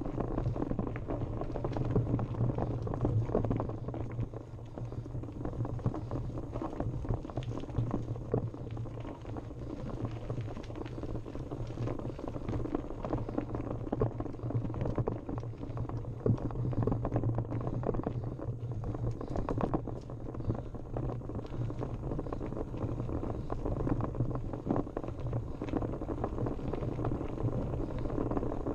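Mountain bike riding down a rough dirt trail: a steady low rumble with dense rattling and clicking from the tyres on loose ground and the bike jolting over bumps.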